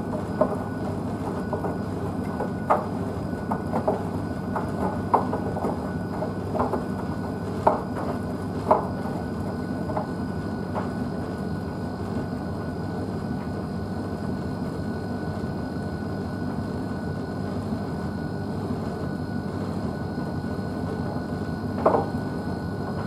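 Blomberg WNF9448 front-loading washing machine tumbling a wet dog blanket in its wash: a steady motor hum and drum rumble with a faint steady whine. The heavy load drops with irregular knocks, many in the first ten seconds and again once near the end.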